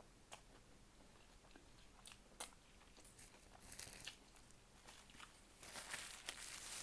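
Close-miked eating: a person chewing and biting into fast food, heard as soft scattered clicks and crunches. The crackling turns denser and louder for about the last second.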